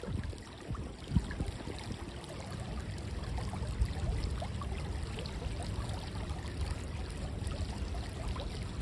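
Shallow creek flowing and trickling steadily, with a low rumble underneath and a small knock about a second in.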